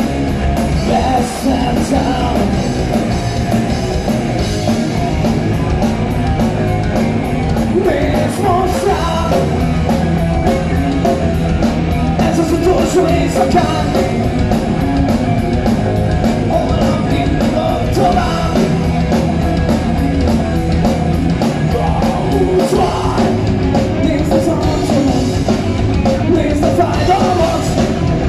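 Live rock band playing loud through a PA: electric guitar, bass guitar and drum kit, with the drums keeping a steady beat.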